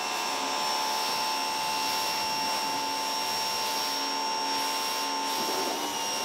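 Active VE52 electric pressure washer running under load, its motor and pump giving a steady high whine over the hiss of the water jet spraying onto a car's body panels. The pitch wobbles briefly near the end.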